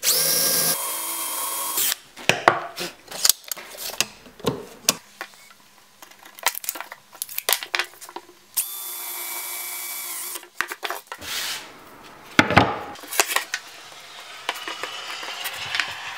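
Cordless drill running in two bursts of about two seconds each, one at the start and one about nine seconds in, driving into picture-frame wood. Between the bursts come scattered clicks and knocks of the drill and wood being handled.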